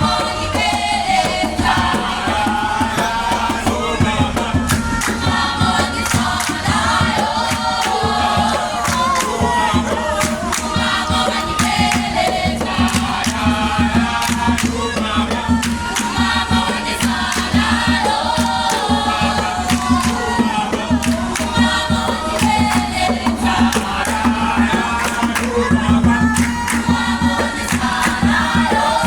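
A group of children singing together, with sharp percussive hits such as claps or stamps scattered through the song.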